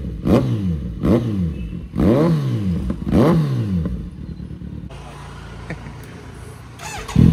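Kawasaki Z900 inline-four with a newly fitted aftermarket performance exhaust, blipped on the throttle about five times in quick succession, each rev jumping up and falling straight back. It then settles to a quieter idle, and near the end it is revved up again and held.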